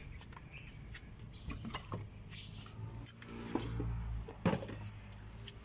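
Clicks and knocks of a heavy new car battery being handled by hand, its plastic case bumping and scraping against the van's battery compartment and sill.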